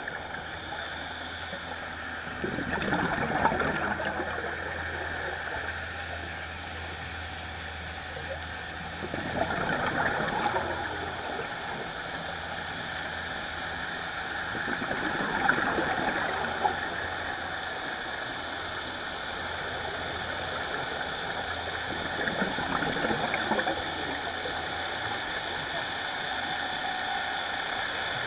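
Underwater recording of a scuba diver breathing through a regulator: exhaled bubbles rush and gurgle in four swells about every six to seven seconds, over a faint steady low hum.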